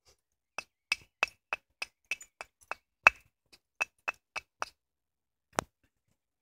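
Flint hand axe being knapped by hand percussion in its last shaping stage. The strikes are a run of sharp clicking knocks, about three a second, then a short pause and one last strike near the end.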